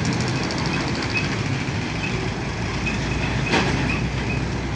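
A train running past a railway level crossing: a steady, loud rumble of wheels on the rails. Faint high pings repeat about twice a second through it, and one sharp click comes about three and a half seconds in.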